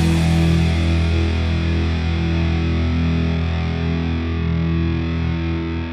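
Rock music ending on a distorted electric guitar chord that is held and rings out, slowly fading.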